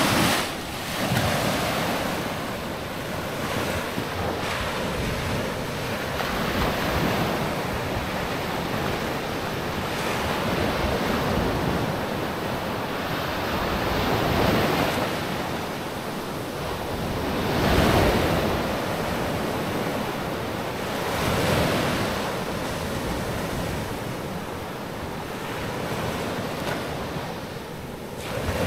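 Sea surf breaking and washing up a sandy beach, the noise swelling and falling back every few seconds as each wave comes in, with wind on the microphone.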